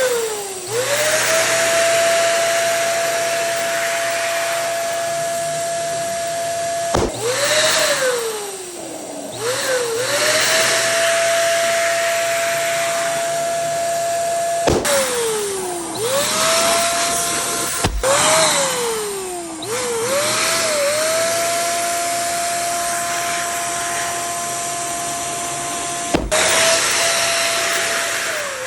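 Small electric air pump, likely a balloon inflator, whirring with a steady whine. Four times a sharp snap sounds; the whine then sinks as the motor winds down and climbs back as it starts up again.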